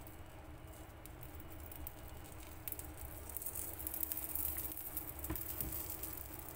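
Uthappam batter frying in a hot nonstick pan as coconut oil is drizzled over it, with a fine sizzling crackle that grows louder about three seconds in.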